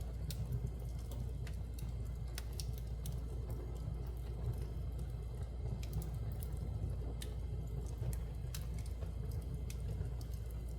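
Fire burning in a fireplace: irregular sharp crackles and pops over a steady low rumble.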